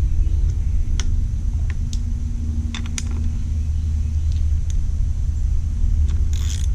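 Steady low rumble with a few light clicks and taps of parts being handled and fitted on a scooter's headlight assembly, and a short hiss near the end.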